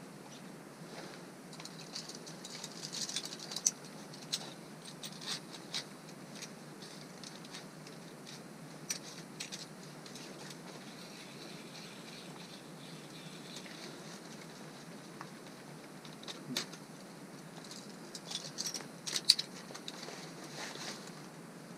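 Ice-climbing hardware clicking and scraping: carabiners and an ice screw clinking against each other and the ice as the screw is placed. The sharp clicks come in two clusters, one a few seconds in and one near the end, over a faint steady hiss.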